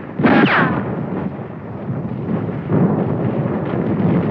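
Battle sound effects of explosions and gunfire, with a short falling whine about half a second in, then a dense, continuous din.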